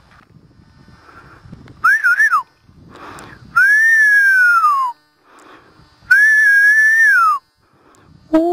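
A person whistling loudly three times close by. First comes a short wavering whistle, then two longer whistles that each hold their pitch and drop away at the end. Near the end a steady, much lower hummed tone begins.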